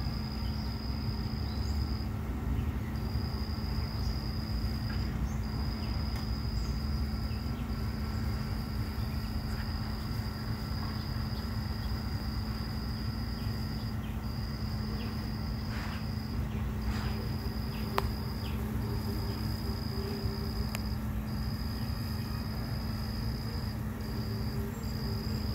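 An insect trilling, a single high-pitched tone held for stretches of several seconds with brief pauses between them, over a steady low hum.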